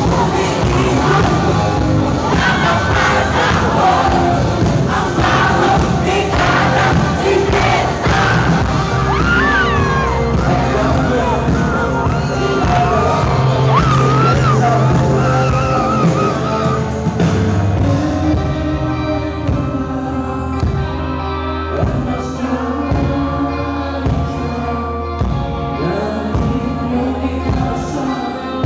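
Live rock band playing, heard from within the crowd: a lead vocal over electric guitars and drums. After about 18 seconds the sound thins out to a steadier drum beat under the voice.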